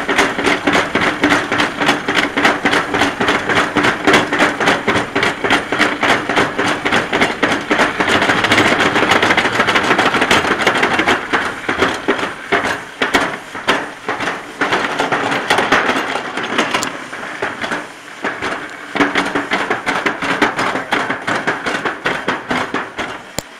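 A summer toboggan sled running down a stainless-steel trough, its wheels clattering rapidly over the track's joints with a steady rumble. After about eleven seconds the clatter thins into separate knocks and fades near the end as the sled slows into the bottom station.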